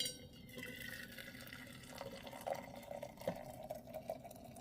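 Boiled coffee being poured from a pot into a Zojirushi container, a steady stream of liquid filling it, with a clink and short ringing at the start.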